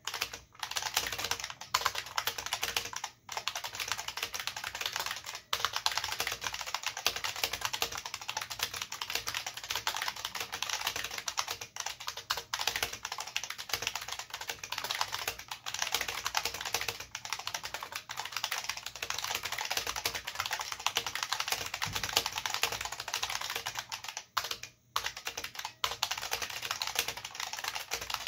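Fast continuous typing on an IBM Model F122 keyboard: the capacitive buckling spring switches click and ping under PBT dye-sub keycaps, broken by a few short pauses.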